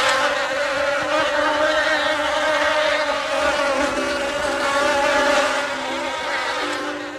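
Wasp buzzing steadily in flight, a continuous hum. About halfway through, a second set of low, even tones joins in and grows toward the end.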